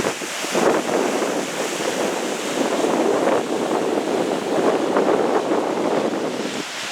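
Strong wind buffeting the microphone in gusts over the wash of waves.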